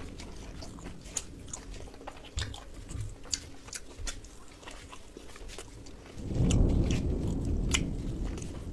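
Close-miked chewing and biting of chicken, with many sharp wet mouth clicks. About six seconds in, a louder low rumbling noise sets in and carries on.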